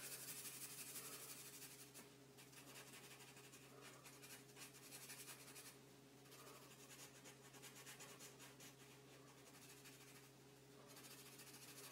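Faint scratching of a felt-tip permanent marker on paper in short, uneven strokes as a stripe is coloured in black, over a steady low hum.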